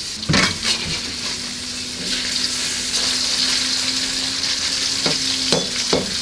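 Chicken pieces sizzling steadily as they brown in hot oil in a wok. A metal wok spatula scrapes and knocks against the wok a couple of times about half a second in, and again three times near the end.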